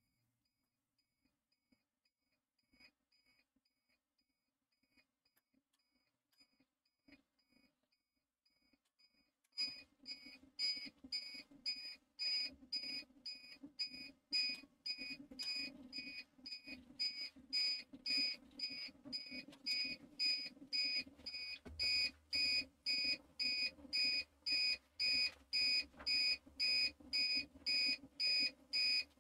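Uninterrupted power supply (UPS) alarm beeping repeatedly in a high two-tone pattern, about two beeps a second. It is faint at first and much louder from about ten seconds in. It is warning of a power fluctuation, which the owner puts down to a heater drawing high wattage on the same circuit.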